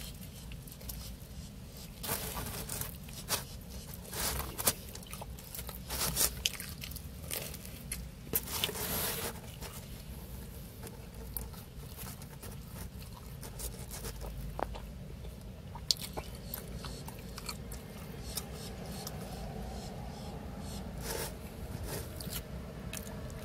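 A person biting and chewing pizza crust close to the microphone: irregular crunches and mouth noises, most of them in the first ten seconds, sparser after that.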